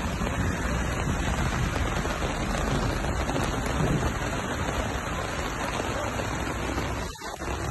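Steady rain falling, with a brief drop-out about seven seconds in.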